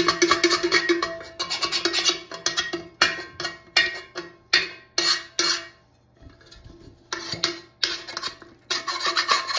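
Scissor blade scraping the sharp metal burrs off freshly drilled holes in a metal cooking pot: quick rasping strokes in spurts, pausing briefly a little past halfway.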